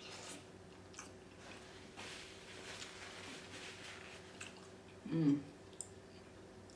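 Close-miked wet chewing and lip-smacking of saucy boiled seafood, with small clicks and squishes. A short low 'mm' hum about five seconds in.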